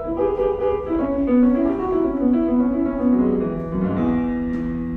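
Piano playing a short intro: a run of notes stepping downward, then settling on a held chord about four seconds in.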